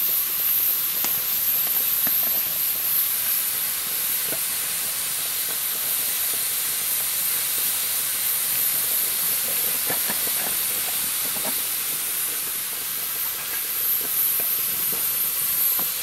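Steam hissing steadily from a pressure cooker's valve on a wood-fired stove, with a few faint clicks.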